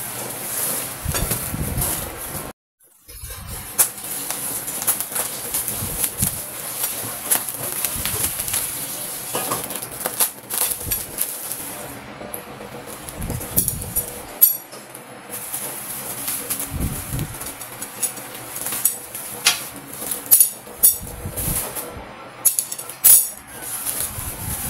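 Rustling and crackling of bubble wrap and cardboard packaging being handled, with scattered clicks and knocks of metal towel-rack tubes set down on a tile floor. The sound drops out briefly a few seconds in.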